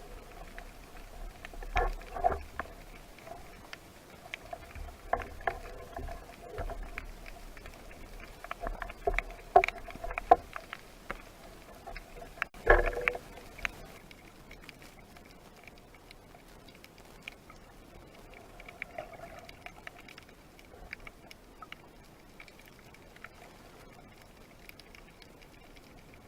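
Underwater clicks and knocks in clusters, the loudest about thirteen seconds in, thinning to scattered faint ticks in the second half: the kind of noise a spearfisher makes scratching and knocking stones on the seabed to draw fish in (razzolata).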